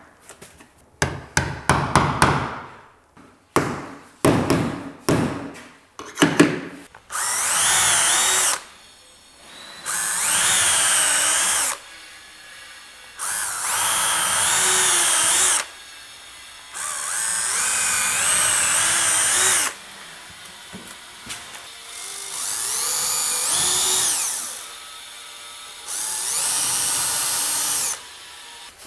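Hammer striking a chisel in quick repeated blows for the first several seconds, chopping out a hinge recess in a softwood door frame. Then a cordless drill-driver runs in six bursts of about two seconds each, driving screws through a steel butt hinge into the frame.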